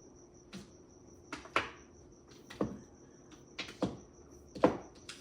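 Mahjong tiles clacking as they are handled and set down on the table, about eight sharp, irregularly spaced clicks, with the loudest near the end.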